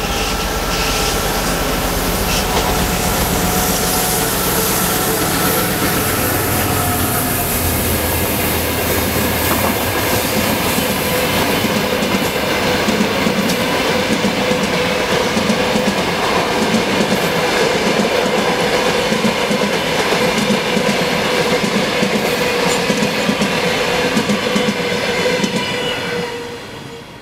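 A TEP70 diesel locomotive passes hauling a passenger train. Its diesel engine rumbles deeply in the first several seconds, then the coaches roll by with a clickety-clack of wheels over rail joints and a steady squeal from the wheels on the curve. The sound fades out near the end as the last coach goes by.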